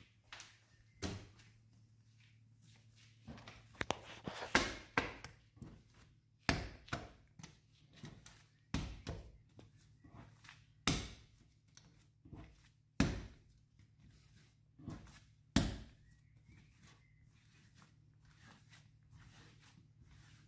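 A soft mass of pizza dough thudding and slapping on a stone countertop as it is folded and rounded into a ball by hand: a series of irregular thuds, the loudest a couple of seconds apart. The thuds stop about three-quarters of the way through, leaving quieter handling.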